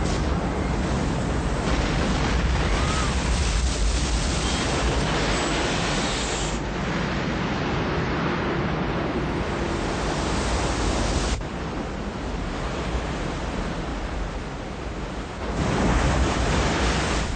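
Steady rushing noise, like a sound-effect bed of wind or surf. Its character changes abruptly three times: the high end thins out about six and a half seconds in, the level drops about eleven seconds in, and it swells again near the end.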